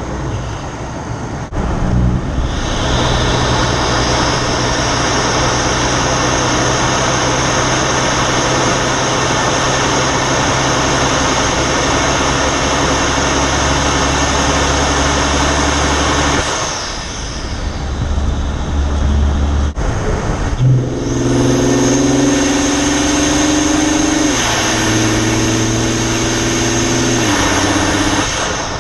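Ford 2.7 EcoBoost twin-turbo V6 accelerating hard, its turbos spooling with a steady high whistle drawn through an Injen cold air intake. The pull eases off for a few seconds past the middle, then comes back on, and near the end the engine note steps down twice.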